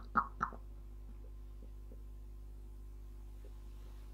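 A man's laughter, a run of short bursts that dies away about half a second in, then quiet room tone with a steady low hum.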